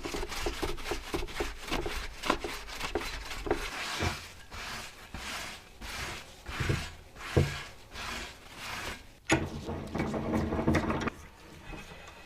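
Repeated hand scraping strokes on a rusty takoyaki plate, quick at first, about three or four a second, then more spaced. A sharp click comes about nine seconds in, followed by a couple of seconds of denser rubbing.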